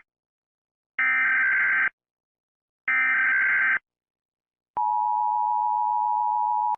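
Emergency Alert System SAME header data bursts: two harsh, buzzy screeches each just under a second long, about a second apart. About 4.7 seconds in, the steady two-tone EAS attention signal begins and holds.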